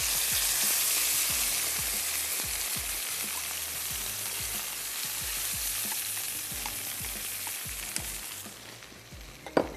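Chicken stock poured into a hot pan of sautéed carrots, onion and garlic, hissing and sizzling as it hits the pan, then slowly dying down over several seconds while a spatula stirs through it. A single sharp knock near the end.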